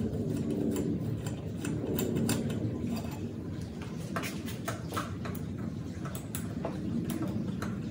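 Hand tools and metal parts clicking and tapping irregularly, over a steady low hum.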